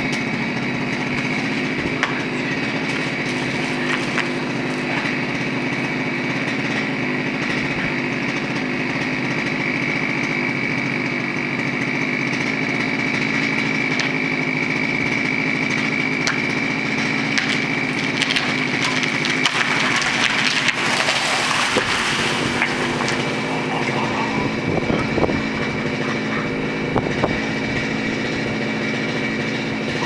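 Chainsaw engine running steadily high up in a larch tree being cut down. About twenty seconds in, a rushing, crackling crash of several seconds as the cut top of the larch trunk falls through the branches; afterwards the saw's note drops and becomes uneven.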